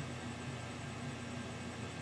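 Steady low hiss with a faint low hum and no distinct event: room tone.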